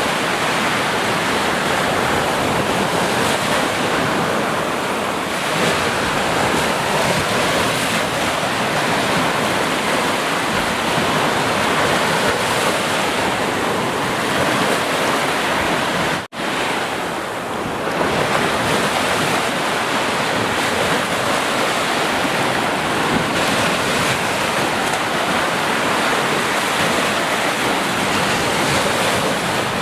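Sea surf washing steadily, a dense, even rush of breaking waves, with a sudden dropout lasting a fraction of a second a little past halfway.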